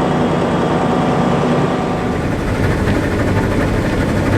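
Heavy vehicle engine running steadily; its note changes about two seconds in, getting lower and rougher.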